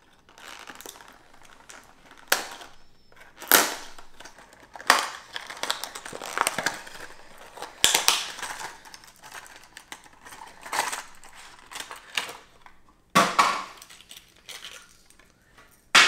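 Stiff plastic blister packaging around a crankbait being cut and pried apart by hand: irregular crinkling and crackling, broken by sharp snaps of the plastic, a few of them loud.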